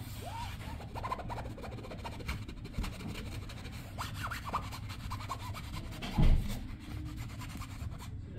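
Fingertips scratching and rubbing on the nylon fabric of a pop-up play cube in quick, repeated strokes while a kitten's paw bats at the fabric from inside. There is one louder thump about six seconds in.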